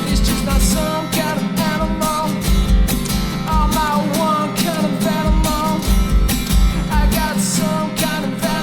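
Background music: a rock song with guitars, bass and drums keeping a steady beat, with a wavering lead line, and no words sung.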